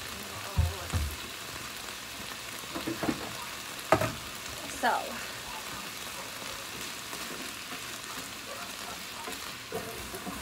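Onion, carrots, potatoes and diced tomatoes sizzling steadily in oil in a skillet, with a few short knocks near the start and again a few seconds in.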